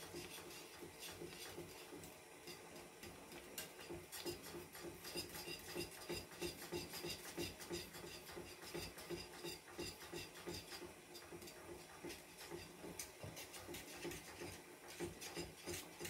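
Thick, freshly cooked custard cream being stirred in a glass bowl: faint, rhythmic scraping and rubbing strokes, about two a second, worked to keep the cream free of lumps.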